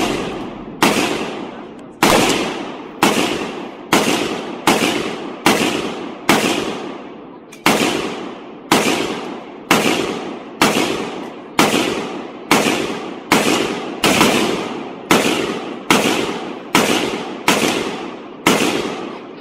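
A rifle fired in a long, steady string of single shots, about one every three quarters of a second. Each shot rings out and trails off before the next.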